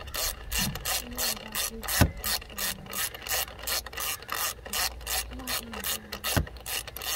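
Hand ratchet with a 10 mm socket clicking steadily, about four clicks a second, as coil pack hold-down bolts are snugged down. A sharper knock comes about two seconds in and another near the end.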